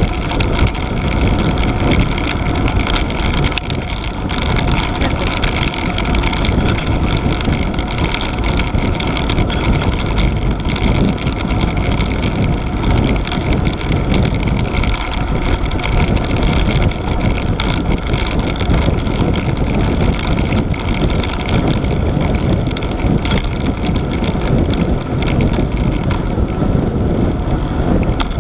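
Steady rumble of wind buffeting the microphone of an action camera on a moving road bike, with road noise from the tyres on tarmac.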